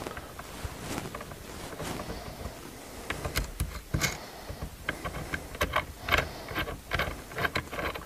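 Small metal clicks and knocks as a steering column lock plate compressor tool is loosened with a wrench and unthreaded, releasing pressure on the lock plate. Nearly quiet at first, then a run of irregular clicks from about three seconds in.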